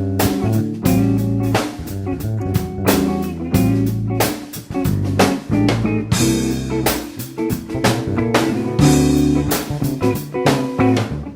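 Background blues-rock music: electric guitar, bass and a drum kit with a steady beat.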